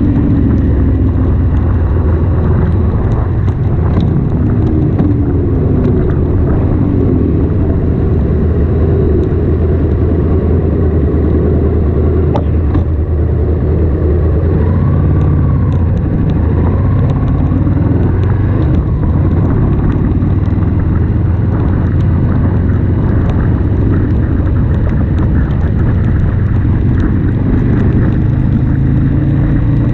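Ducati Monster S2R's air-cooled L-twin engine running on the move, a steady low rumble with a hiss of wind and wet road over it.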